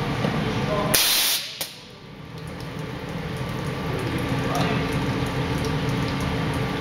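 A CNC glass edge-polishing machine runs with a steady hum. About a second in, a short loud hiss of compressed air is released. The machine noise then drops away and builds back up over the next couple of seconds.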